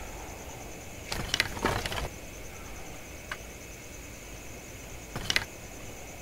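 A few small clicks and rattles in short clusters, about a second in and again near the end, over a faint steady hiss.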